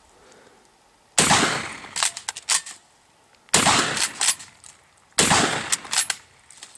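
Three gunshots, about two seconds apart, each followed by echoing and a few sharper cracks.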